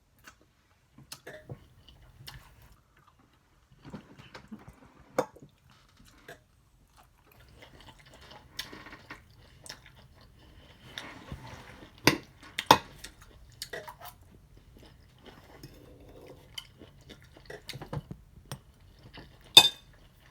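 Close-miked eating: chewing, with scattered sharp clicks and taps of cutlery and takeout containers. The loudest clicks come a little past the middle and near the end.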